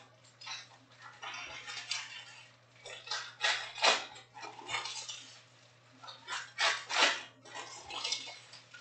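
Panini Prizm trading card packs being torn open, their wrappers crinkling, and the cards shuffled and slapped against each other in irregular bursts.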